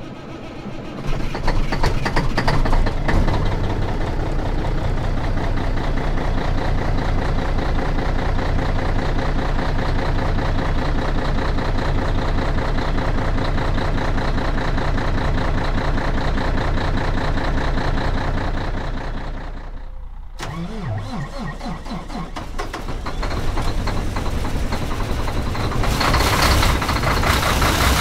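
Semi-truck diesel engine starting up and settling into a steady idle. Around two-thirds of the way through the sound briefly drops and changes, and near the end a louder engine sound with more rush takes over.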